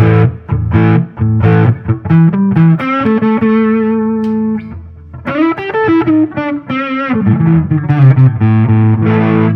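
Electric guitar, a Squier Jazzmaster played through the Crow overdrive pedal into a Fender Tonemaster Deluxe Reverb amp, giving a dark, overdriven tone. It plays picked single notes and held chords, and some held notes waver in pitch about halfway through.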